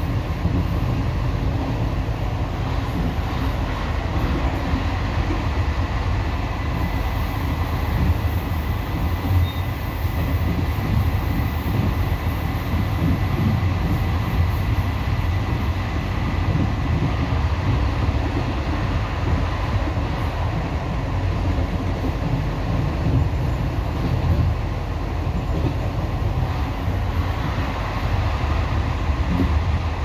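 ONCF passenger train running at speed, heard from inside the carriage: a steady low rumble of wheels on track, with a faint high whine for several seconds near the middle.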